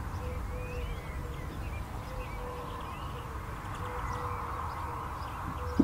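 Outdoor garden ambience: small birds chirping thinly over a steady low background rumble, with a faint low note repeating about every half second. A single sharp click comes near the end.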